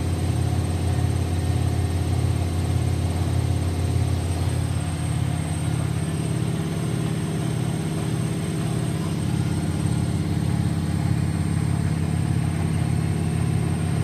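Bauknecht top-loading washing machine running its spin cycle: a loud, steady motor-and-drum hum with a regular throb and a thin high tone above it.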